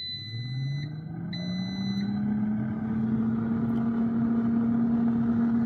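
Instant Pot Vortex Plus air fryer oven starting to preheat: two long electronic beeps, while its fan motor hum rises in pitch over the first two seconds or so, then runs steady.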